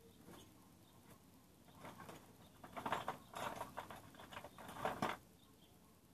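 Light clicking and scratchy rattling of small metal parts being handled, in several short bursts between about two and five seconds in.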